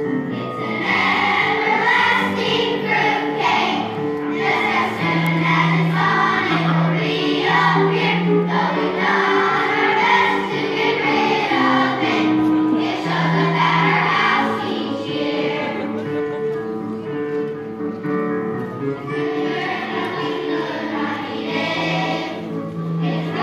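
A children's choir singing a song.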